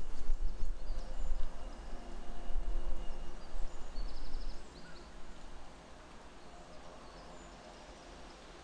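Outdoor ambience with birds calling, including a quick run of high chirps about four seconds in, over a low rumble that drops away about five seconds in.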